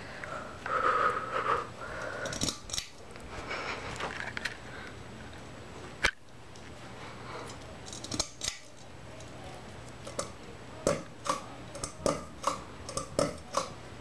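Pull-chain switches of a Hunter Fremont ceiling fan clicking as the chains are pulled, with the chains rattling, over a faint low hum. A short pitched sound comes about a second in, the loudest thing heard; the clicks come thickest in a run near the end.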